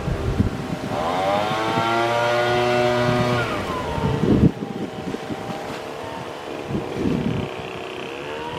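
Car engine revving up, holding, then dropping back, followed by a sharp knock and a few lighter knocks.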